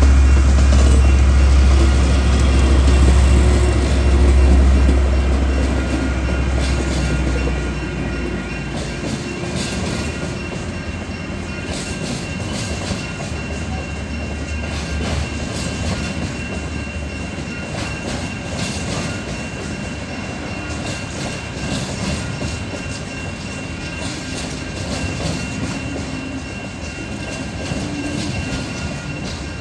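Freight train passing over a level crossing, hauled by a DL-class diesel-electric locomotive. A heavy low rumble fades after about eight seconds, leaving the wagons rolling by with a steady clickety-clack. The crossing's Safetran electronic bell rings over it.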